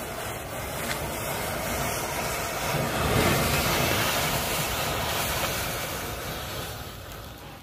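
A large mass of safety matches burning together in tall flames: a steady rushing noise of fire, with a few faint crackles, that swells about three seconds in and then slowly dies down.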